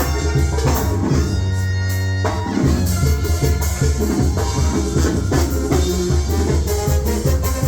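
Loud Latin dance music with drum kit, bass and guitar; about a second in the drums drop out under a held chord, and the beat comes back in after another second or so.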